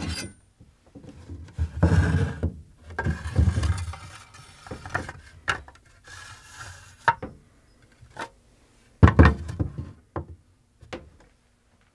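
A steel katana blade being slid into its hollow bamboo scabbard on a wooden workbench: scraping and rubbing of bamboo and steel, with a series of sharp clicks and knocks. The loudest knocks come about nine seconds in.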